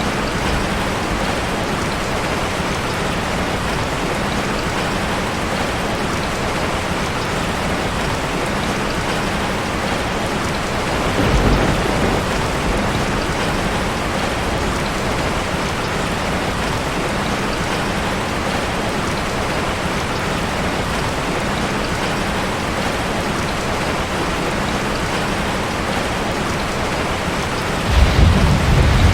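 Steady rain falling on a street. A low rumble rises about eleven seconds in and again near the end.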